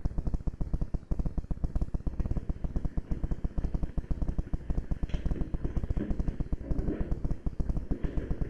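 Airsoft gun firing full-auto: a fast, steady rattle of shots with a brief break about a second in.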